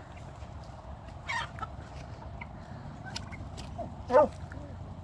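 Backyard poultry calling: short scattered calls, with one louder call about a second in and the loudest, a pitched call falling at the end, near the end.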